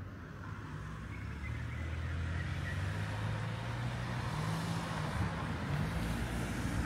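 A motor vehicle's engine running close by: a low hum that grows louder over the first two seconds, then holds steady with slight shifts in pitch, over general road-traffic noise.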